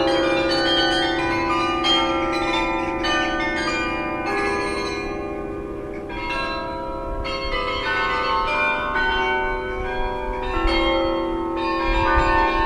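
Tower bells ringing: many tuned bells of different pitches struck one after another, each tone ringing on and overlapping the next.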